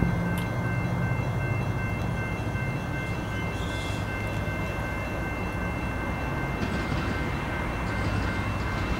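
Diesel locomotives of an approaching freight train, led by a BNSF GE ES44C4, running with a steady low rumble and engine hum.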